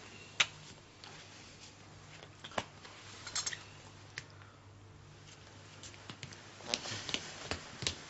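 Scattered light knocks and clicks over a low, steady room hum, then a run of footsteps on a hard floor near the end.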